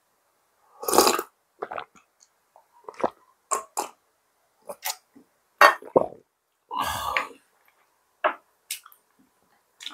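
A person eating close to the microphone: chewing with wet mouth smacks and clicks in short separate bursts, and two longer breathy bursts, one about a second in and one later.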